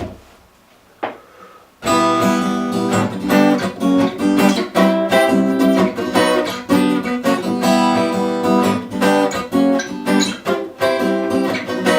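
Acoustic guitar: a couple of short strums, then from about two seconds in steady rhythmic strumming of the song's introduction chords.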